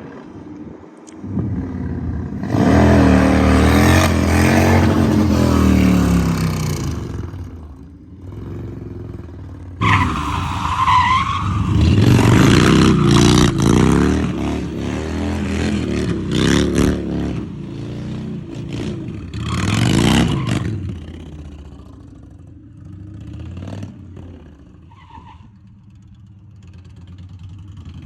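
Indian Chief's V-twin motorcycle engine revving and accelerating in two loud stretches, its pitch rising and falling, with quieter running in between and near the end.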